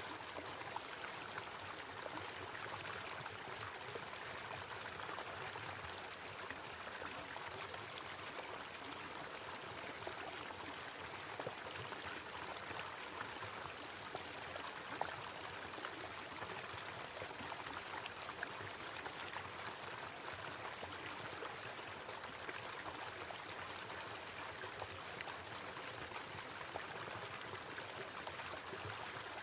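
Small waterfall running steadily: an even, continuous rush and splash of falling water.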